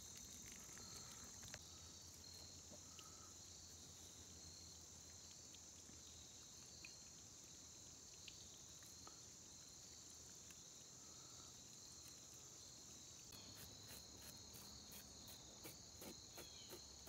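Faint, steady, high-pitched chorus of crickets and other insects trilling without pause. About three-quarters of the way in, a run of quick faint ticks joins it.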